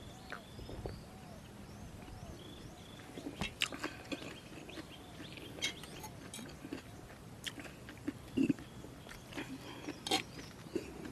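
Chewing on a mouthful of crunchy jellyfish salad, with scattered crisp crunches, a few louder than the rest, and bird calls behind.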